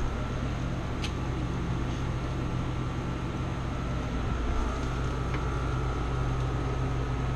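Steady fan-like hum, a low drone with a thin steady whine above it, with two light clicks about a second in and again past the middle.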